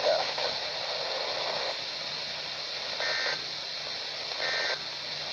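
NOAA Weather Radio SAME end-of-message data tones through a Midland HH54VP handheld weather radio's speaker: two short buzzy digital bursts about a second and a half apart, starting about three seconds in, over steady radio hiss. They mark the end of the required weekly test.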